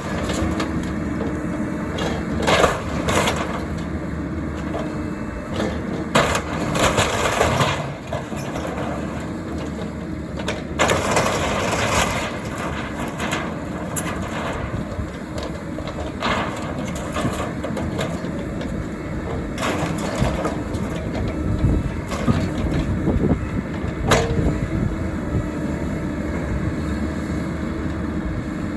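A mini excavator's engine runs steadily while wooden boards crack, splinter and crunch in irregular sharp snaps as the shed is pulled apart.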